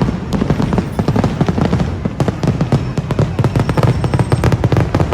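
Rapid barrage of firework bursts and booms, many sharp reports a second over a deep rumble, as in a fireworks finale.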